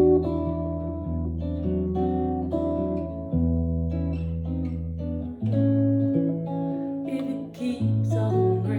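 Gibson ES-175 hollow-body electric guitar in open G tuning, capoed at the second fret to the key of A, played on the neck pickup with the tone knob rolled down for a dark, warm tone. It picks a blues riff over low ringing bass notes.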